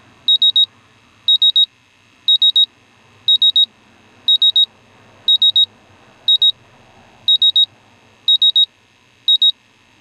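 MultiRAE multi-gas detector sounding its gas alarm, set off by gasoline vapors: groups of three sharp high-pitched beeps repeating about once a second.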